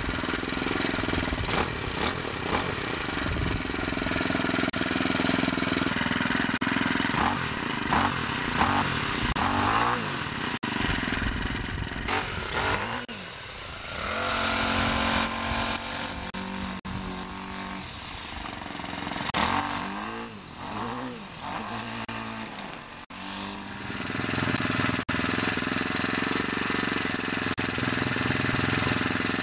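Small four-cycle engine of a Ryobi/Troy-Bilt string trimmer running. It runs steadily, and its speed changes up and down a few times in the middle.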